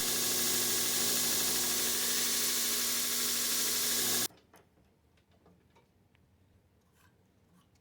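A steady hiss with a low hum under it, which cuts off abruptly about four seconds in, leaving near silence with a few faint clicks.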